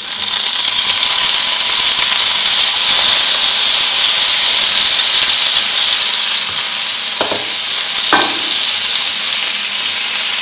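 Drained, boiled white asparagus pieces frying loudly in hot oil with garlic in a non-stick pan, a steady high sizzle as they are stirred with a wooden spoon. The spoon knocks twice against the pan about seven and eight seconds in.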